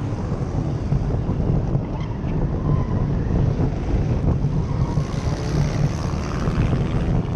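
Enduro race car driving on the track, its engine running steadily under a low rumble of road and wind noise heard from inside the car.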